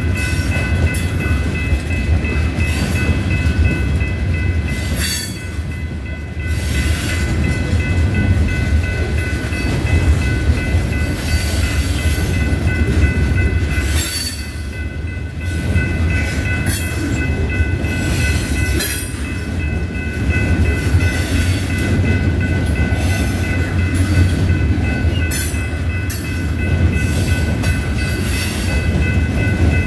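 Freight train cars rolling past at close range: a steady low rumble of steel wheels on rail with scattered clicks and clanks. A steady high-pitched tone runs through it.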